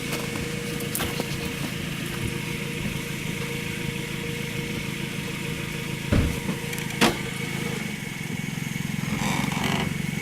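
Chevrolet Tracker's engine idling steadily while the 4x4 creeps backward a short way with a snow chain draped over the tyre, with a short knock about six seconds in and a sharp click a second later.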